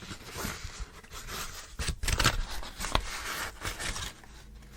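Rustling and scraping of books and paper packaging being handled, in irregular bursts, with a sharp tap about three seconds in.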